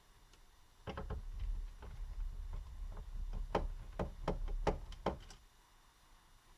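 Irregular small clicks and taps of a screwdriver working screws out of a laptop's plastic bottom case, about a dozen between one and five seconds in.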